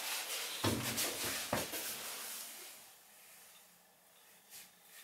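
Faint handling noise, rustling with two light knocks, the first about half a second in and the second about a second and a half in, then near silence.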